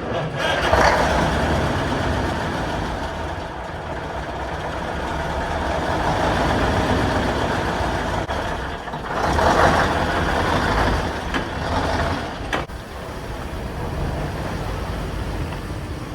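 Old truck's engine running steadily, with louder rushing surges about a second in and again around nine to eleven seconds.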